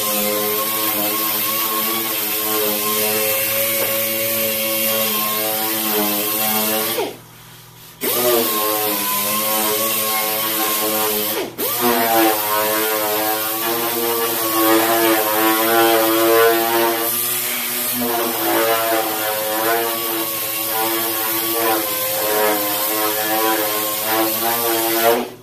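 Pneumatic orbital sander whining as it sands body filler with 60-grit paper. Its pitch wavers as it is pressed into the work. It is released for about a second around 7 seconds in and spins back up, cuts out briefly near 11 seconds, and stops just before the end.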